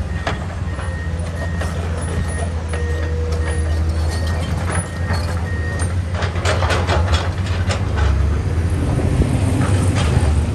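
Komatsu PC210 hydraulic excavator's diesel engine running steadily, with its travel alarm beeping about once a second for the first few seconds. Sharp metallic clanks and knocks follow in the second half.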